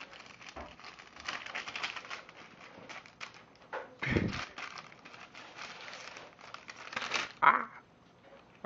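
Sheet of paper rustling and crinkling as it is dragged over a carpet and pawed at by a kitten, with a dull thump about four seconds in.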